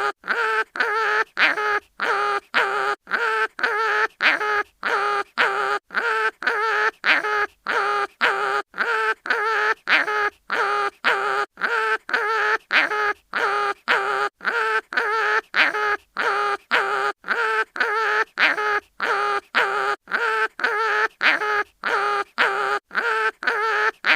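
Cartoon animal crying-in-pain sound effect: a short, pitched, wavering wail repeated about twice a second with brief silent gaps, looping evenly.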